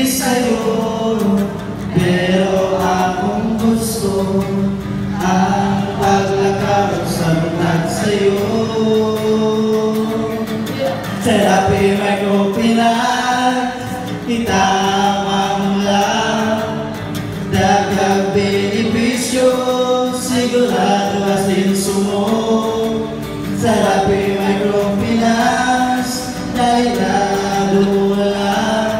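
A small mixed group singing a song together, accompanied by an acoustic guitar.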